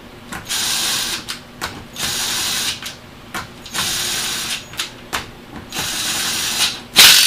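A ratchet with a socket runs down the small bolts that hold the two halves of an Audi 4.2 V8 mechanical cam adjuster together, in short runs of under a second each, one bolt after another. There are about five runs, and the loudest starts near the end.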